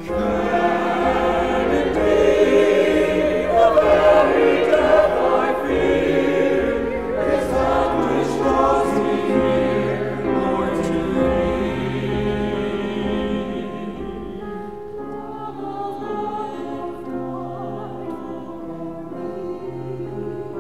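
Mixed church choir singing an anthem with piano accompaniment, swelling loudest in the first few seconds and softening through the second half.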